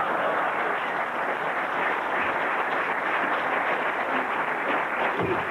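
Theater audience applauding, a dense, steady patter of many hands clapping.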